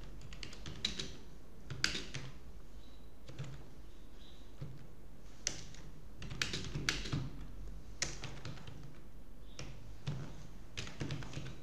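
Typing on a computer keyboard: irregular keystroke clicks in short clusters with pauses between, over a faint steady low hum.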